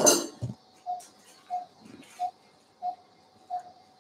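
Anaesthesia monitor beeping in time with the patient's pulse: a short mid-pitched beep about every two-thirds of a second, roughly 90 a minute. A brief rustle and knock of handling comes right at the start.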